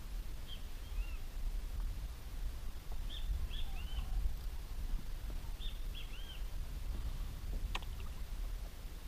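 Steady low wind rumble on the microphone, over which a bird calls three times, each call a quick group of about three short rising-and-falling chirps. A single sharp click near the end.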